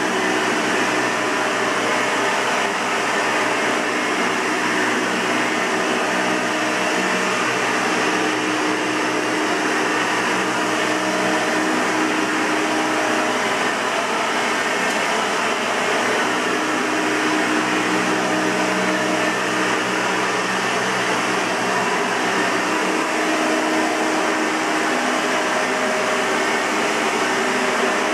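1992 Hoover Elite 200 bagged upright vacuum cleaner running steadily: an even rush of air with a few held motor tones, unchanging throughout.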